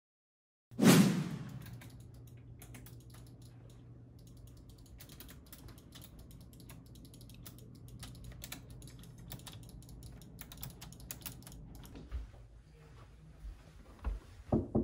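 A loud thump about a second in, then rapid clicking of a gaming keyboard and mouse over a steady low hum, with a few soft thuds near the end.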